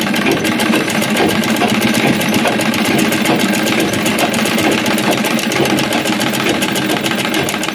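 Sewing machine running steadily, stitching along the edge of the fabric: a fast, even run of needle clicks.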